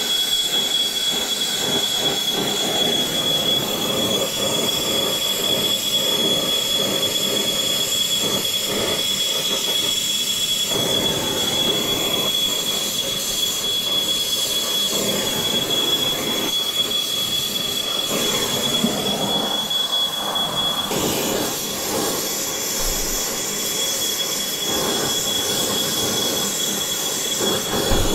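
Oxy-fuel brazing torch flame hissing steadily on a copper joint, with a smoke alarm's high, steady tone sounding over it, set off by the brazing. The tone stops for about a second roughly two-thirds of the way through, then comes back.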